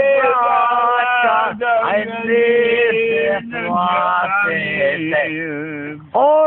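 Two drunk men singing loudly together without accompaniment, in long drawn-out notes, with one voice wavering in a wobbly vibrato about two-thirds of the way through.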